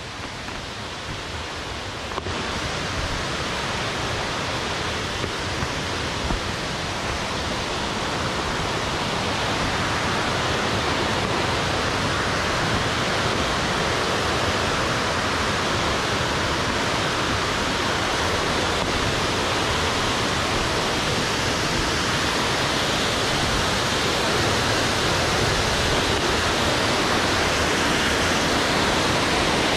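Waterfall, the steady rush of falling water, growing louder over the first several seconds and then holding steady.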